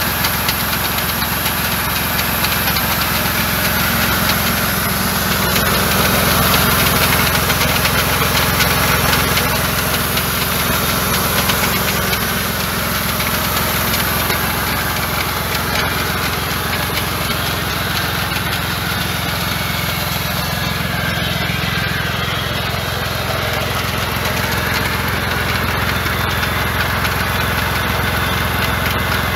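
Başak 2043 tractor engine running steadily at a constant speed, with a steady high hiss over it.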